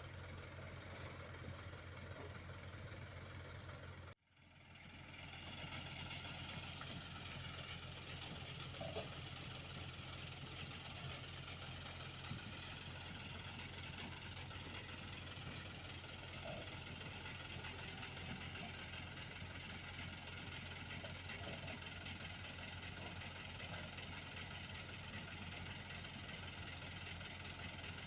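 Diesel engines of road-paving machinery (rollers, asphalt paver and dump truck) running steadily. The sound cuts out briefly about four seconds in and then resumes.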